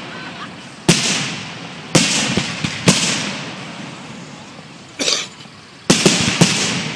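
Fireworks going off: sharp bangs about a second apart, each with a fading tail, and smaller cracks in between. About five seconds in comes a brief burst of noise, then a quick run of three bangs near the end.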